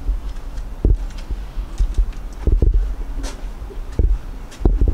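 Low rumble of wind and handling on the microphone, with a few irregular bumps and knocks as the camera is carried along the boat.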